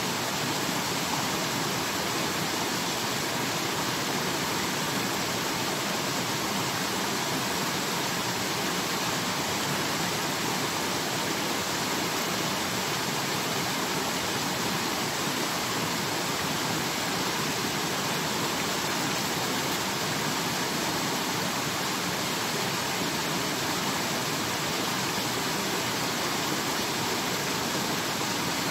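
Steady, unbroken rush of water.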